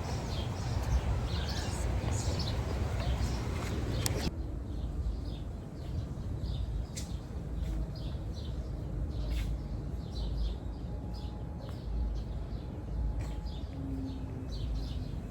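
Birds chirping over a low, steady rumble of outdoor ambience. The first four seconds are a denser, noisier wash that cuts off abruptly, and a few sharp knocks sound later on.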